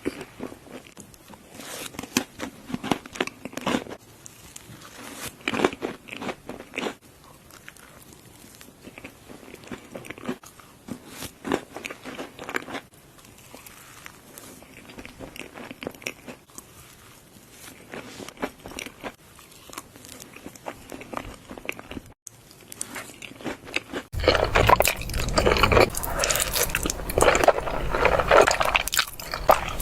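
Kinetic sand being crushed and crumbled by hand, a steady run of soft, irregular crunching and crackling. About 22 seconds in it briefly drops out, then comes back much louder and fuller for the last several seconds.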